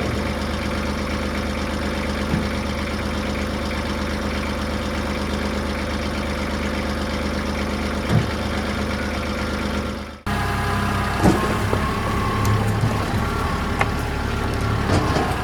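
Tractor engine running steadily. A few short knocks and clatters come in over it in the last few seconds.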